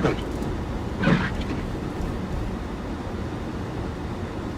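Steady in-car rumble of a car driving through deep snow, with the windshield wipers on full speed swishing across the glass right at the start and again about a second in.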